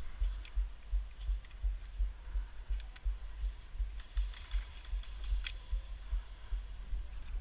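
Steady low thumps about twice a second, in the rhythm of walking footsteps jolting a body-worn camera's microphone, with a few sharp clicks.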